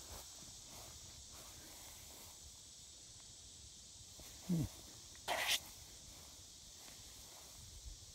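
Slow footsteps on mown grass under a steady high hiss, broken about four and a half seconds in by a short falling voice sound and then a brief, sharp breathy hiss.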